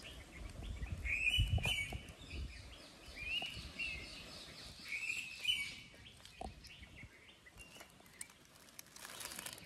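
Small birds chirping in short repeated calls, over a few low rushing puffs of breath as a person blows into smouldering newspaper and twig kindling to get a fire to catch.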